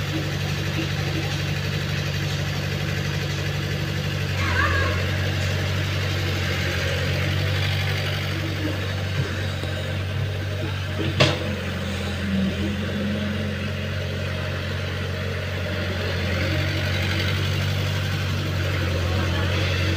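Caterpillar mini excavator's diesel engine running steadily while it digs. A single sharp knock comes about halfway through.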